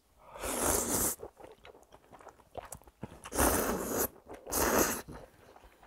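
A person slurping ramen noodles from a spicy chicken stew broth: three slurps, each about half a second to a second long, the first near the start and two close together a little after the middle, with faint chewing sounds between.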